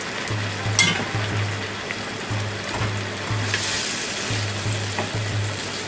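Wine simmering in a frying pan of sautéed onions and marmalade, stirred with a wooden spatula, with a brief louder hiss about three and a half seconds in. Background music with a low pulsing bass plays throughout.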